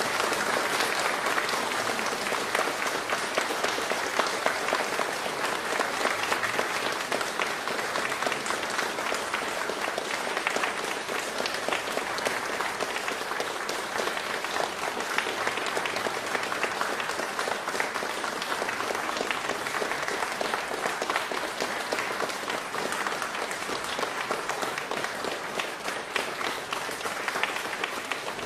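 Crowd applauding: many hands clapping in a dense, steady stream.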